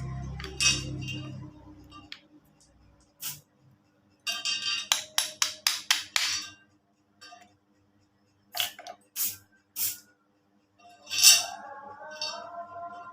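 Sharp metallic clinks and taps, a quick run of about eight near the middle, then three spaced ones and a loud one near the end, over background music.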